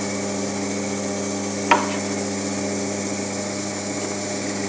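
Pillar drill motor running steadily with an 8mm bit in the chuck, giving an even hum; a single short click about a second and a half in.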